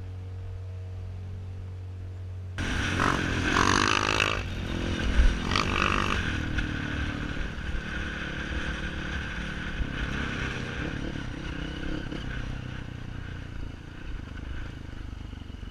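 Off-road motorcycle engine running on a dirt trail, with scraping and rough noise. A steady low hum gives way suddenly to the louder riding sound about two and a half seconds in, which then slowly eases.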